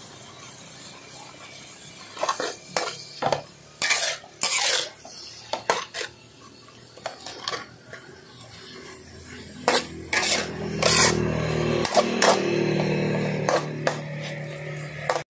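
Metal spatula scraping and clinking against a wok while stir-frying raw pork and offal. The strokes come in scattered bursts, grow denser and more continuous in the last five seconds, then stop abruptly.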